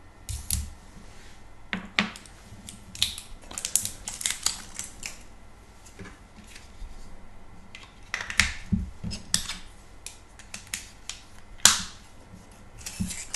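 Handling noises: crackling plastic packaging as an AA battery is freed from it, and irregular clicks of a small plastic battery cover and battery being worked on a Zoom H1 handheld recorder, with one sharp snap near the end.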